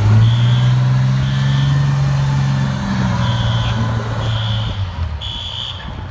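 A truck engine running close by, its pitch rising over the first two seconds and then easing off. Behind it, System Sensor fire alarm horns sound in the three-beat temporal pattern: three short beeps a second apart, a pause, then three more.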